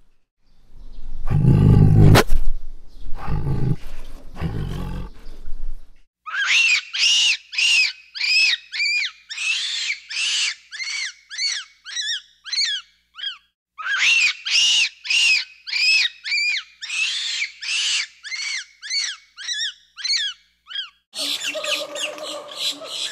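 Tiger giving three deep, rough roars. Then a monkey calls in two long runs of high-pitched notes, each run getting quicker and shorter, and near the end a lower, harsher call begins.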